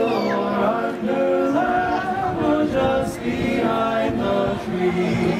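A cappella group of several voices, men among them, singing in close harmony, holding sustained chords that shift every second or so.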